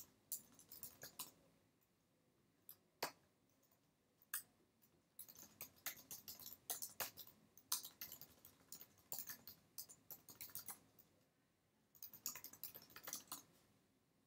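Typing on a computer keyboard, heard faintly as bursts of quick key clicks with a few lone clicks between them. A short burst comes at the start, a long run follows in the middle, and another burst comes near the end.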